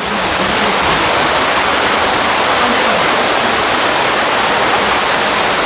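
Steady rush of falling water, like an indoor waterfall or water feature.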